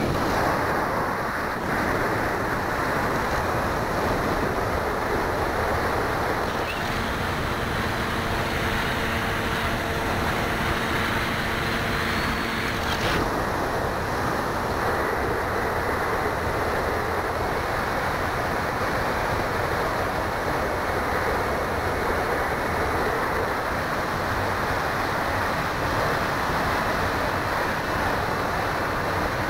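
Steady rush of wind over the microphone of a keychain camera riding on a flying RC plane, with the plane's motor and propeller running underneath. For several seconds, from about a quarter to nearly halfway through, a set of faint steady tones rises out of the rush.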